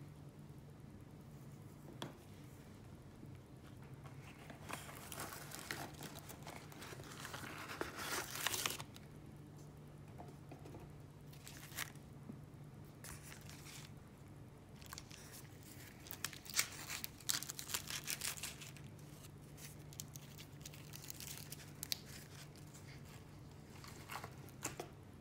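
Thin plastic packaging being torn open and crinkled in irregular bursts of crackle, loudest about eight seconds in, as mochi ice cream is peeled out of its plastic trays. A low steady hum lies underneath.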